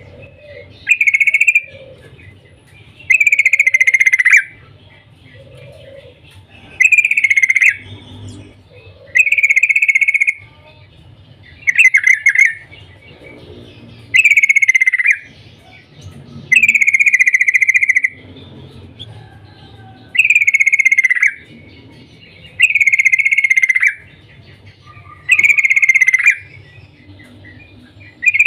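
Yellow-vented bulbul giving its 'cuk cuk' call: a loud, short phrase falling in pitch, repeated about eleven times at intervals of two to three seconds.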